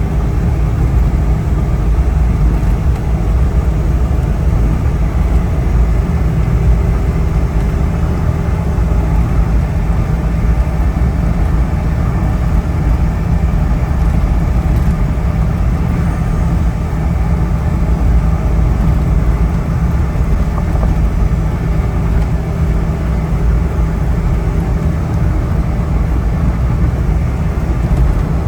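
Steady low rumble of a motor vehicle on the move, engine and road noise running evenly without a break.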